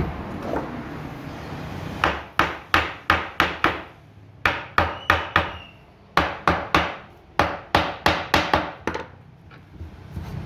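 Hammer striking wood in four quick runs of about four to seven blows each, roughly three blows a second, with short pauses between the runs; the blows begin about two seconds in.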